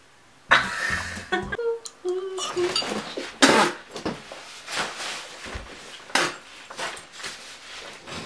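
A woman's wordless reactions: loud irregular huffs and gasps, with a few short high whimpering cries about two seconds in, mixed with rustling and knocks as she thrashes her head and hands about.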